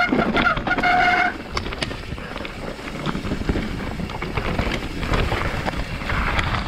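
Mountain bike running fast down a dirt trail: tyre roar over ground and roots, chain and frame rattling, and wind on the helmet-mounted camera's microphone. In the first second or so, a steady high squeal that cuts off, typical of disc brakes under braking.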